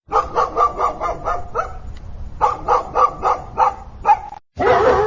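A dog barking in two quick runs of short barks, about five a second, with a short pause between them. After a sudden break a little over four seconds in, a continuous wavering call follows.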